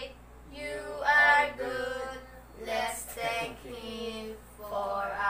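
A woman singing a short sing-song tune, in phrases with a few held notes.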